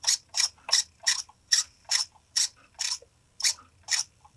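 RC steering servo driving back and forth in short strokes, about two a second, each a brief high-pitched mechanical whirr.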